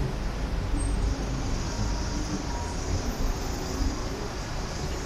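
Steady city street traffic noise, vehicles running along the street with an even hum and hiss and no distinct single event.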